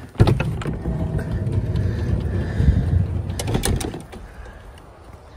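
Handling and movement noise as someone climbs out of a camper van with a phone: a heavy low rumble with a few sharp knocks and clicks, dying down about four seconds in.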